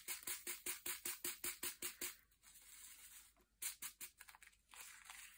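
Diamond-painting drills rattling in a plastic sorting tray as it is shaken back and forth, a quick even clatter of about five shakes a second. About two seconds in the shaking stops, leaving only scattered light ticks and rustles of the drills settling and being handled.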